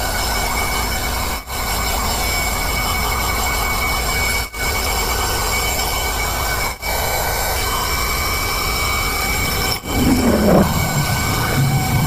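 Autofy Dusto 120 W handheld 12-volt car vacuum cleaner running steadily with a high motor whine as its brush nozzle works over a dusty car floor carpet. The sound breaks off for an instant four times, and a little after ten seconds a falling tone sweeps downward.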